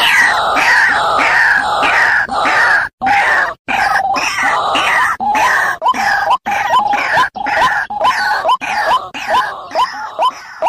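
White-breasted waterhen (ruak-ruak) calling: a dense run of harsh, repeated croaking calls that gives way after about five seconds to a regular series of short rising notes, about two a second, fading near the end.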